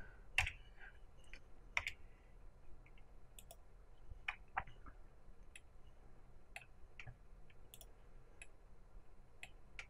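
Faint, irregular clicking of a computer mouse and keyboard, about fifteen separate clicks scattered unevenly through the stretch.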